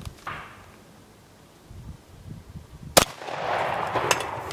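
A single 12-gauge shotgun shot about three seconds in, fired with a homemade load of a small plastic container filled with lead shot, followed by about a second of echo and a lighter click.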